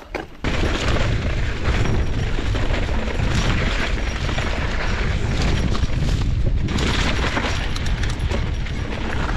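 Heavy wind buffeting on the camera microphone of a mountain bike riding fast down a dirt trail, with tyre and rattle noise from the bike mixed in. It comes in suddenly about half a second in and stays loud and rough.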